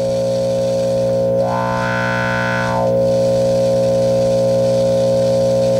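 Held electric guitar chord through a vintage DeArmond 1802 Weeper wah pedal, the wah sweeping up toward treble about a second and a half in and back down about a second later. It is under test for crackling, which the repairer puts down to a noisy transistor rather than one going bad.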